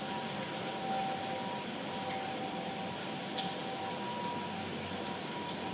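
Steady indoor room noise: an even hiss with a faint steady hum underneath, no distinct event standing out.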